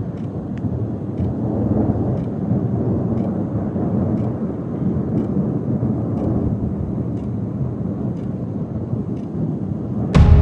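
Long, low rolling thunder, swelling and ebbing for about ten seconds. Music comes in abruptly just before the end.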